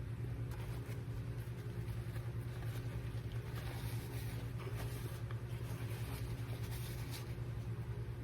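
Steady low hum, with faint scattered crackly clicks over its top through the middle of the stretch.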